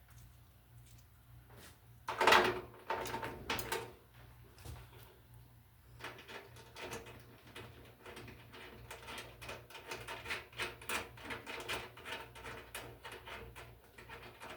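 Clattering and knocking as the replacement switch and its wires are pushed up into the metal range hood housing, a loud cluster about two seconds in, then a long run of small irregular clicks and rustles as the wiring is worked into place.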